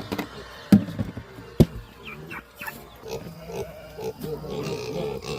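Pig grunting repeatedly while begging for and eating grain, with two sharp knocks in the first two seconds.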